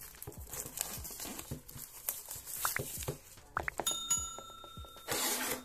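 A cardboard smart watch box handled and its sleeve slid off, with scraping and rustling, then a bell-like ding about four seconds in that rings on, and a short burst of hiss near the end.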